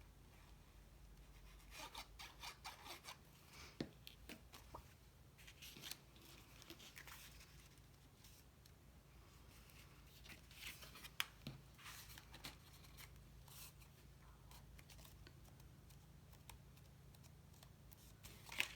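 Faint crackling and rustling of cardstock being handled, folded over and pressed down as glued pieces are joined, in scattered short clusters.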